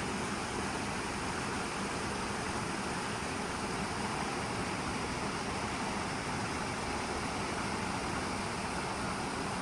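Shallow mountain stream rushing over rocks and a small cascade: a steady, even rush of water.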